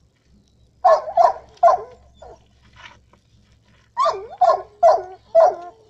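A boxer dog barking: three quick barks, a pause of about two seconds, then four more barks, each ending in a falling tail.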